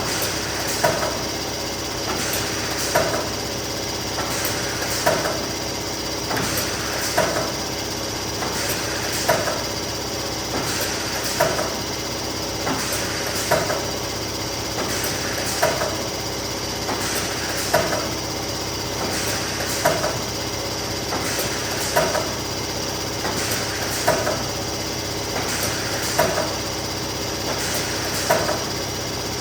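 Neoram 540 hot laminating machine running steadily, with a sharp double click about every two seconds, as sheets feed through one after another.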